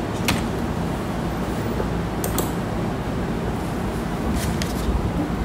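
A steady low background hum with a few short clicks: one just after the start, one in the middle and a couple near the end.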